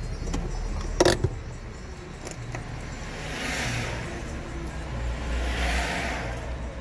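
Car driving in town: steady low engine and road rumble, with a sharp knock about a second in and two swells of road noise later on.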